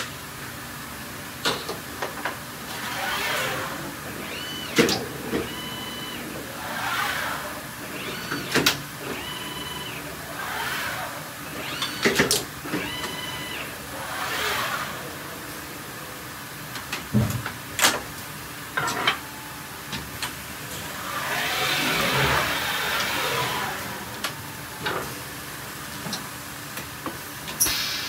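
Linear servo assembly station running through its cycle: repeated whirring sweeps as the servo axes move, a few short high motor whines that step up and back down, and sharp clicks and knocks of the grippers and fixtures. The longest whir comes about three quarters of the way through.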